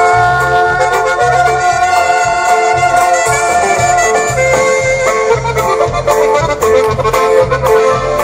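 Norteño-style dance music: an accordion holding long notes over a steady, repeating bass line, without singing.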